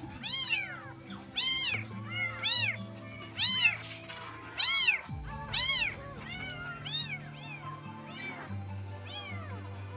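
Newborn kitten meowing again and again in short, high cries that rise and fall in pitch, loudest in the first six seconds and fainter after.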